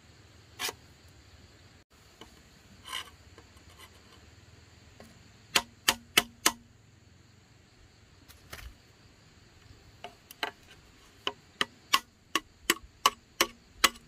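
Hand-tool blows striking bamboo, heard as sharp knocks. A few single knocks come first, then a quick group of four a little before halfway, then a steady run of about three a second near the end.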